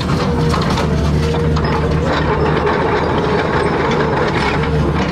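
Excavator running: a steady engine drone under rapid metallic clattering and rattling.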